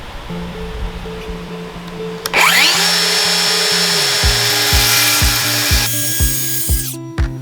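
A power tool motor starts about two seconds in with a rising whine, runs steadily for about three and a half seconds, then its high-pitched noise drops away. Background music with held notes and a steady low beat plays underneath.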